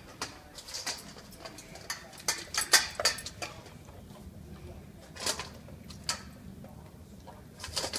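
Large dog eating from a stainless steel bowl on a raised stand: irregular crunches and sharp clinks of food and teeth against the metal, coming in clusters.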